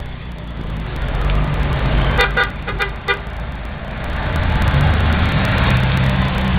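Classic cars passing slowly with their engines running; a car horn gives several short toots a little past two seconds in. The engine rumble grows louder as another car comes past near the end.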